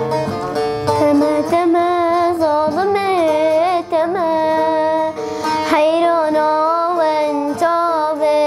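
A young girl singing a wavering melody with vibrato to a plucked buzuq (long-necked lute) accompaniment; the buzuq plays alone at first and her voice comes in about a second in.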